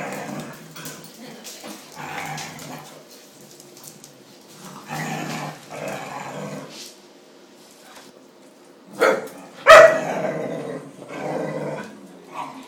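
A Dalmatian and her puppies barking and growling in short bouts, the loudest a sharp bark about ten seconds in.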